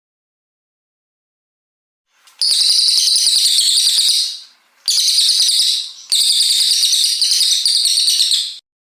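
Brown cililin songbird singing a loud, high-pitched song in three long phrases. The first begins about two seconds in, after silence, and the last ends shortly before the close.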